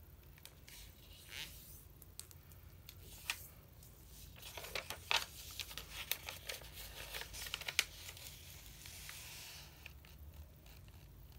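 Origami paper rustling and crinkling as it is folded corner to corner into a triangle and creased flat by hand, making the diagonal folds of a crane base. A cluster of sharp crackles comes about four to eight seconds in, as the creases are pressed down.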